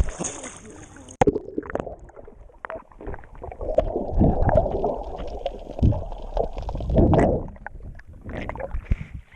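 Water sloshing and gurgling against a camera at the surface. About a second in the sound turns muffled and dull, as when the camera goes under, with several heavy low thumps from the water.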